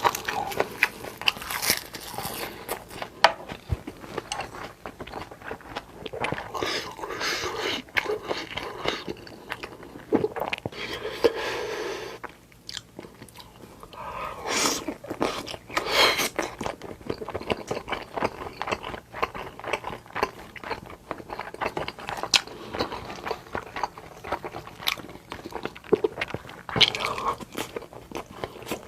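A person eating close to the microphone: chewing with crunchy bites, mouth sounds and many sharp clicks throughout, easing off briefly about halfway through.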